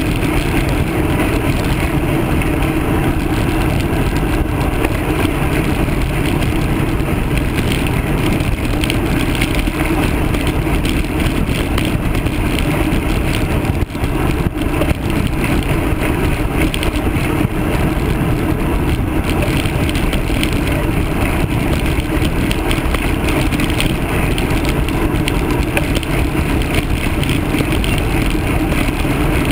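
Steady wind rushing over a handlebar-mounted camera's microphone on a road bike riding at speed, with one brief dip about halfway through.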